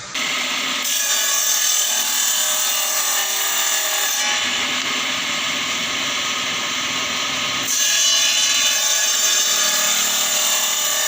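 Electric power tool running continuously on wood, a steady whine over a noisy cutting or sanding sound, with abrupt changes in tone about four and eight seconds in.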